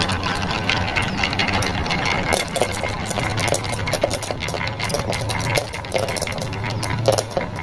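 Marbles rolling and clacking down a carved wooden zigzag track, a dense run of rapid, irregular clicks and rattles over a low steady hum.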